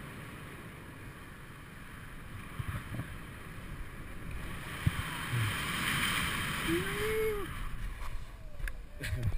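Air rushing over the jumper's head-mounted camera microphone as a BASE jumper glides down under an open parachute canopy. The rush grows louder past the middle, and a brief rising-then-falling tone sounds about seven seconds in.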